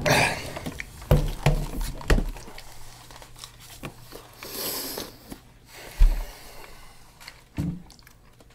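Scattered handling and movement noises: a few light clicks and knocks, a brief rustle near the middle, and a dull thump about six seconds in.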